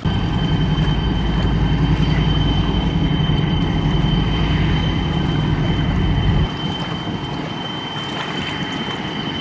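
River towboat's diesel engines droning steadily, a heavy low rumble with a steady high-pitched whine over it. The low rumble drops away about two-thirds of the way through, leaving the whine and a lighter drone.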